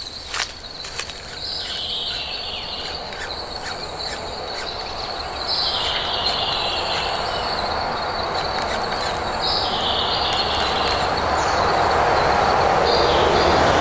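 Insects calling in buzzy, high phrases that step down in pitch, each about a second and a half long and repeating about every four seconds. A rushing noise grows steadily louder toward the end, and a few sharp clicks come in the first second.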